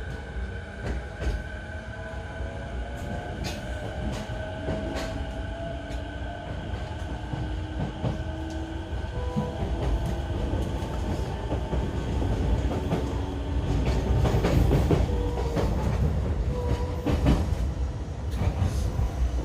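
On-board running sound of a JR E233 series 8000-number electric train: the whine of its Mitsubishi IGBT-VVVF inverter and traction motors rises slowly in pitch as the train gathers speed. Under the whine are the low rumble of the car and the clicks of wheels crossing rail joints, growing louder past the middle.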